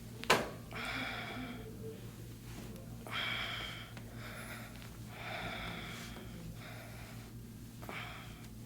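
A person breathing audibly in and out in slow, heavy breaths, about four in all, during soft tissue work on the back. One sharp click just after the start is the loudest sound.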